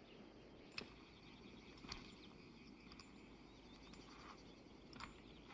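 Near silence: faint outdoor film ambience with soft bird chirps and three faint clicks.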